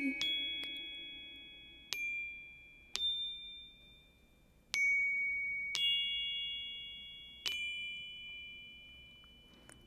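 Soundtrack music: six high, bell-like struck notes spaced one to two seconds apart, each ringing out and fading away.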